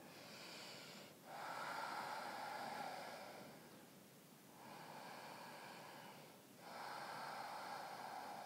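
A woman breathing slowly and deeply while holding a yoga pose: faint, hissing breaths in and out, each lasting about two seconds, with a short pause between them.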